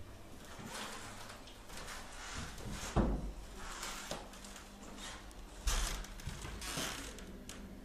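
Scattered knocks and rustling, with a louder thump about three seconds in and another near six seconds.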